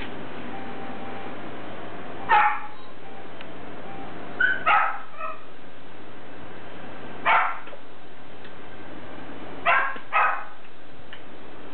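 A dog barking in short, separate barks, about six of them at irregular intervals, over a steady background hiss.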